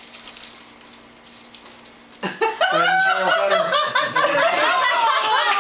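Room quiet at first; about two seconds in, an audience starts laughing, many voices at once, and keeps laughing.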